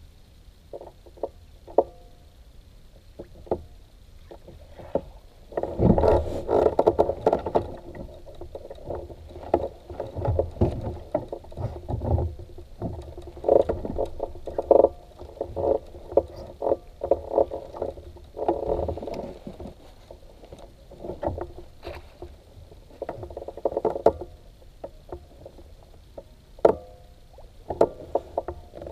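Fishing kayak knocking and creaking as the angler shifts and works in it, in irregular bursts that start about six seconds in and come and go every few seconds.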